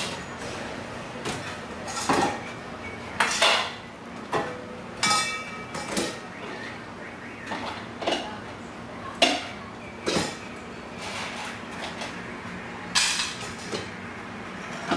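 Dishes and utensils clattering and clinking as dog food is dished out into bowls: irregular sharp clanks, a few ringing briefly.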